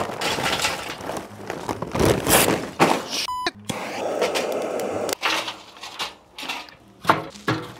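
Lump charcoal clattering into a metal chimney starter, a brief beep-like tone, then the steady hiss of a handheld propane torch lighting the charcoal from below for about a second and a half. Near the end come several separate clanks and knocks as lit coals are worked in the smoker's steel firebox.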